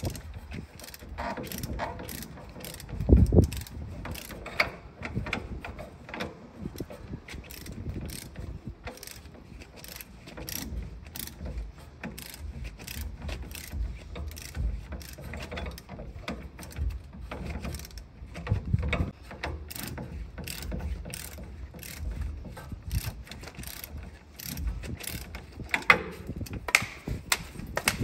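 Ratchet wrench clicking in runs as bolts are turned during a car's rear shock absorber replacement, with a heavier metal knock about three seconds in and a few more near the end.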